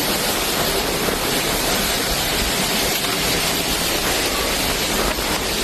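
Hurricane storm noise: a steady, even rushing with no break.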